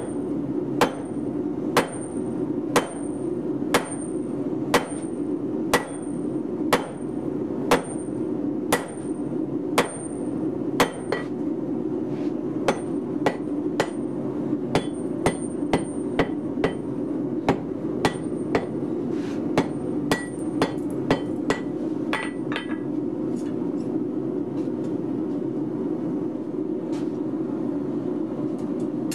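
Hammer blows on a glowing steel block on an anvil, each strike with a high ring. About one blow a second at first, then quicker blows of about two a second, then a few faint strikes near the end, over a steady low hum.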